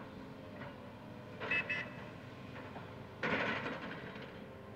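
John Deere excavators' diesel engines running steadily, with two short ringing metallic clanks about a second and a half in and a louder crash of scrap metal and demolition debris a little after three seconds that dies away over about a second.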